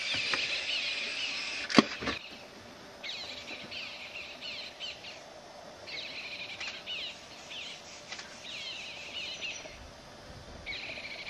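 Birds chirping in the open, their high rapid phrases coming in bursts every few seconds. One sharp click, the loudest sound, comes about two seconds in.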